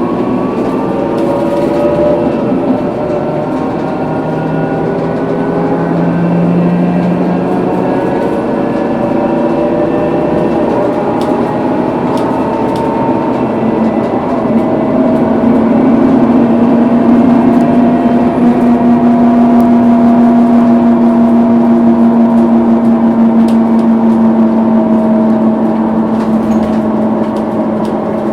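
Scania K230UB bus under way, its rear axle differential whining over the running of the 230 hp DC9 diesel and ZF Ecomat six-speed automatic. The whine climbs in pitch over the first several seconds, then settles into a steadier, louder low whine for the second half.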